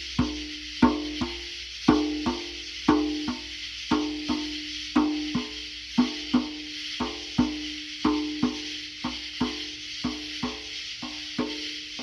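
Hand drum played with bare hands in a steady rhythm of paired strokes, about one pair a second: a strong stroke followed by a lighter one, each ringing briefly with a clear tone. A steady high hiss of night insects runs underneath.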